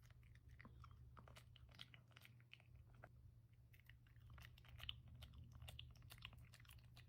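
A dog chewing and crunching food, faint, with many small crisp cracks at an irregular pace over a steady low hum.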